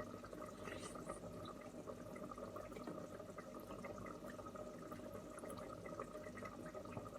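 Faint steady kitchen background: a pot of green pea stew simmering on the stove under a low steady hum, with a few faint clicks.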